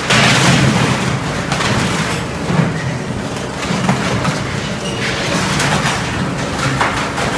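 Caterpillar 226B skid-steer loader's diesel engine running hard while its grapple crushes a wooden rack, with repeated cracking and splintering of boards over a steady low engine drone.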